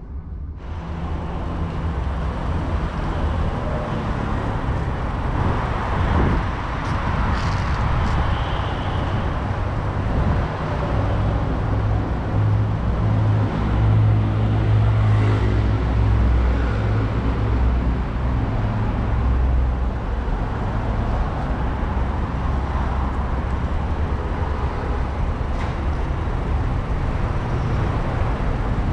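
Outdoor road traffic noise: a steady wash of passing vehicles over a low rumble, swelling for a few seconds around the middle as a heavier vehicle goes by.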